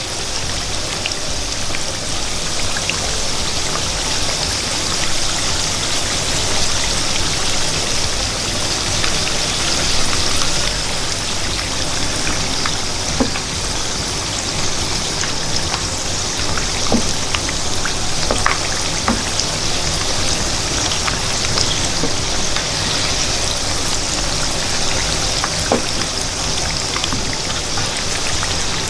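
Samosas deep-frying in a wok of hot oil: a steady sizzle with many small scattered pops.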